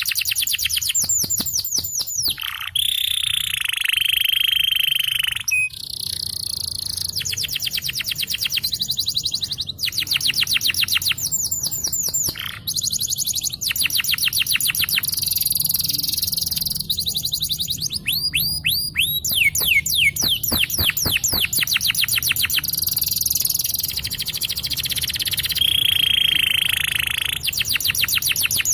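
Domestic canary singing a long rolling song: fast trills of rapidly repeated down-slurred notes, changing from one trill to the next, with a longer held buzzy note near the start and again near the end.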